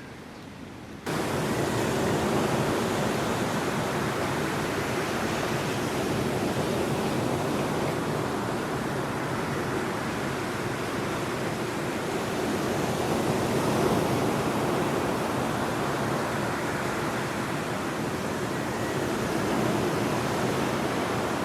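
Ocean surf breaking and washing on a sand beach: a steady rushing that cuts in suddenly about a second in and swells and eases gently.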